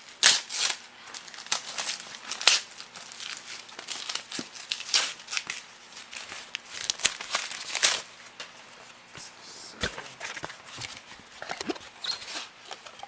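Parcel packaging being torn open and crinkled by hand: irregular rustling, crackling and ripping, with a few louder rips scattered through.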